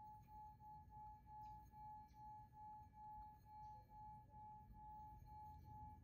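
Faint sustained high meditation tone, pulsing gently about twice a second over a low rumble.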